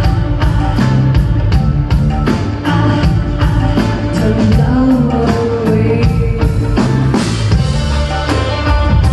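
Live rock band playing: a drum kit keeping a steady beat under bass and electric guitars, with a woman singing through the middle.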